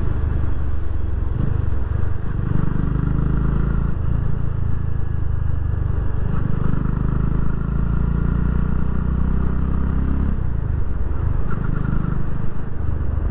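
Yamaha FZ25's single-cylinder engine running under way on the road, its note shifting up and down a few times, over a steady low rumble of wind and road.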